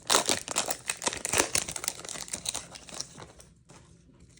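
Foil wrapper of a Pokémon TCG booster pack crinkling as it is handled and torn open by hand. The crackling is dense for about three seconds, then dies away.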